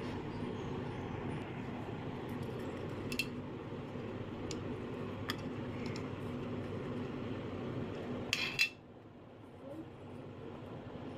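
Miniature steel toy stove and small plastic toy pieces being handled: a few light clicks and clinks, then a louder cluster of clinks about eight seconds in. A steady background hum runs underneath and drops away abruptly right after.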